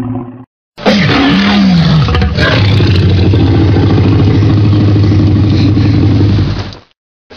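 Tyrannosaurus rex roar sound effect: a loud roar about a second in that falls in pitch, running on into a long, steady, low growling rumble that fades out near the end. The tail of an earlier roar effect cuts off just before it.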